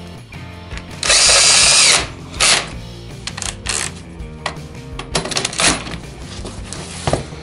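Cordless drill-driver driving screws to fix tilt-and-turn hardware to the edge of a PVC door sash. It runs once for about a second with a whine, then in several short bursts.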